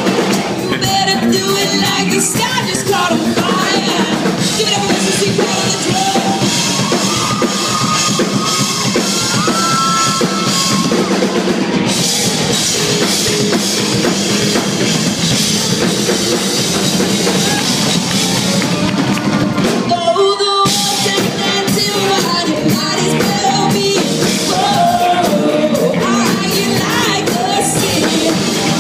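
Live rock band playing with a woman singing lead: drum kit, bass and guitars. The band drops out for a brief full stop about two-thirds of the way through, then comes straight back in.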